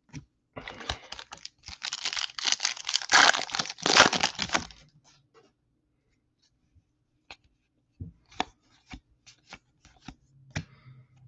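A baseball card pack's wrapper being torn open and crinkled for about four seconds. After a short pause come scattered light ticks as the cards are handled.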